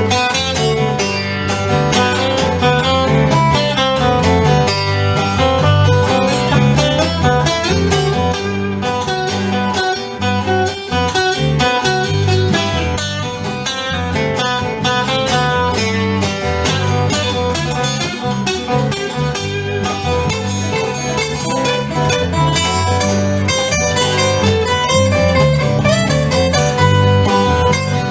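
Instrumental country music: acoustic guitar picked and strummed over a steady bass line.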